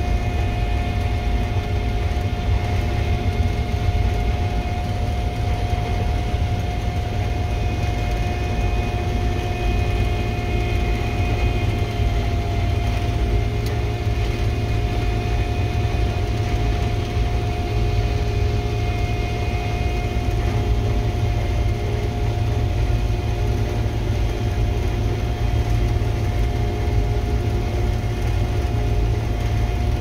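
Gleaner R62 combine harvester running steadily while harvesting wheat, heard from inside its cab: a low, even drone of engine and machinery with a constant mid-pitched whine over it.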